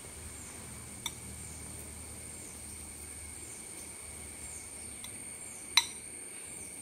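A metal spoon clinks against a glass bowl twice, faintly about a second in and sharply near the end, over a steady high insect drone with repeated falling chirps.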